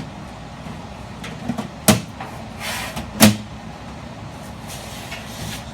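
Galvanized sheet-metal round duct being snapped together at its snap-lock seam: two sharp metallic snaps about a second and a half apart, the second louder, with a short scrape of sheet metal between them.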